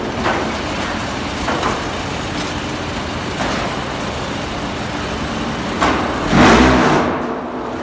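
Stone wool briquetting machine running with a steady mechanical noise, a few short knocks along the way, and a louder surge with a rising and falling pitch about six and a half seconds in.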